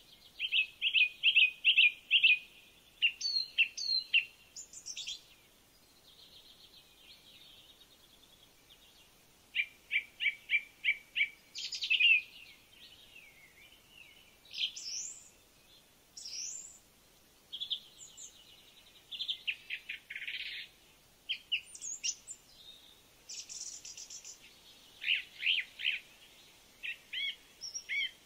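A songbird singing in varied phrases: runs of quick, high chirps, some in rapid trills, mixed with short whistled notes, with brief pauses between phrases.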